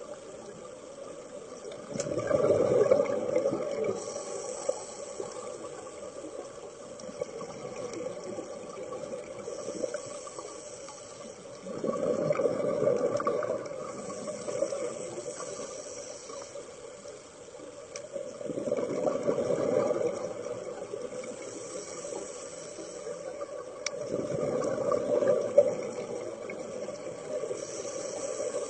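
Underwater hiss with four bursts of bubbling several seconds apart, the exhaled bubbles of a scuba diver's regulator.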